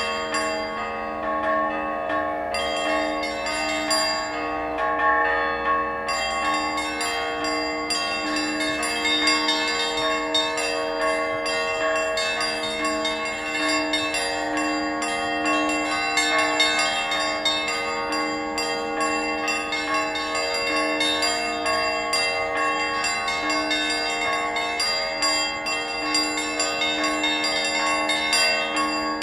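Church bells ringing continuously, stroke after stroke overlapping so that many tones hang on together.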